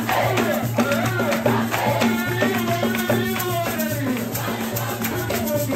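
Live church worship music: voices singing over a repeating bass line, with a shaker rattling on the beat.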